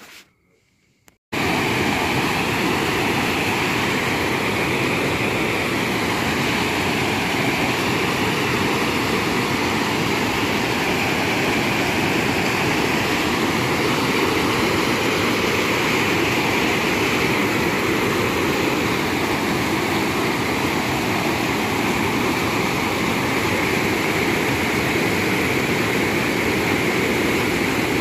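Water pouring over a low dam spillway and churning through whitewater below: a steady, loud rush that cuts in suddenly about a second in.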